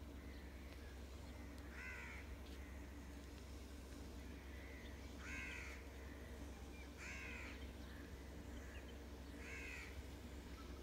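A crow cawing four times, one caw every two to three seconds, over a low steady rumble.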